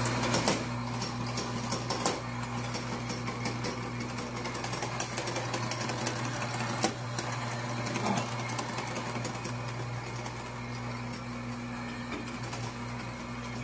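Electric espresso grinder running steadily, grinding coffee beans into a portafilter held under its spout: a steady motor hum with dense crackling throughout.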